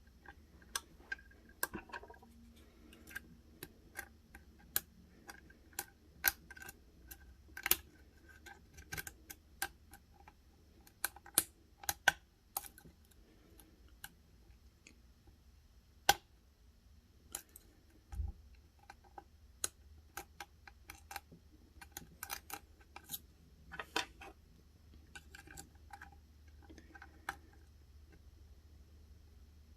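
Lock pick and tension wrench working the pins of the Screamer challenge lock: irregular small metallic clicks and light scrapes, a few of them sharper than the rest, with one dull bump about two-thirds of the way through.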